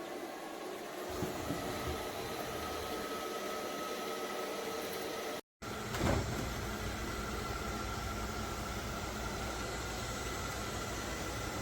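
ILIFE V5s Plus robot vacuum running steadily, its motor and fan whirring with a faint whine. The sound cuts out for an instant about halfway through, and a short knock follows.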